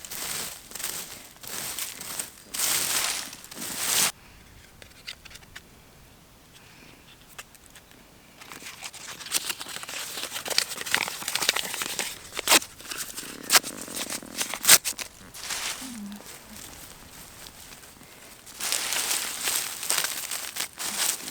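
Crinkling and rustling from hands at work planting in a garden bed, with scattered sharp crackles and clicks. There is a quieter lull about four seconds in.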